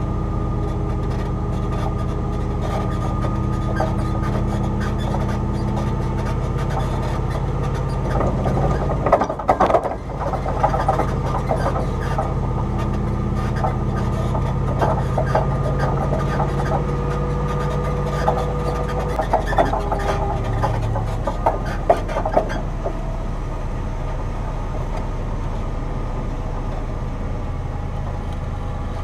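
Tow truck engine running steadily while pulling a car across beach sand on a tow rope, its pitch shifting a little now and then. Irregular knocks and rattles come through from about a third of the way in until past the middle.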